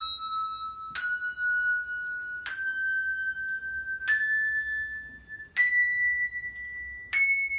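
Handbells ringing six notes one after another in a rising scale, each note struck cleanly and left to ring on until the next.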